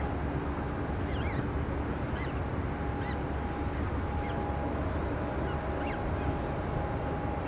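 Faint, short, high peeping calls, about one or two a second, typical of great crested grebe chicks begging as the adult brings a fish. Under them runs a steady low rumble with a constant hum.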